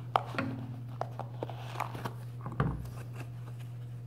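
A foam insert being worked out of a rubber Boom Racing Hustler RC crawler tire by hand: scattered rubbing and squeaking handling noises, and a knock about two and a half seconds in as the tire is set down on a wooden table. A steady low hum runs underneath.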